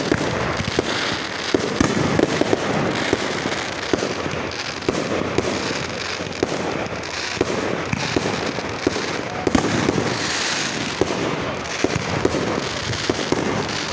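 Fireworks going off all around: many sharp bangs at irregular intervals over constant crackling, with no let-up.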